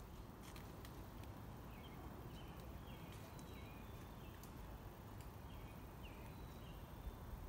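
Faint woodland ambience: a steady low hiss with a few short, high bird chirps spread through it and scattered light clicks.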